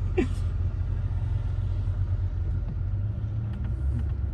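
Low, steady rumble of a Land Rover moving slowly in traffic, heard from inside its cabin.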